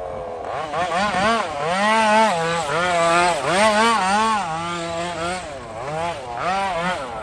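Small petrol engine of a radio-controlled car revving up and down over and over as the throttle is blipped, its pitch rising and falling about eight times in seven seconds.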